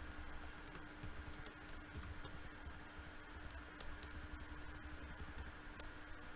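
Typing on a computer keyboard: irregular key clicks as a hexadecimal value is entered one key press after another, over a faint steady hum.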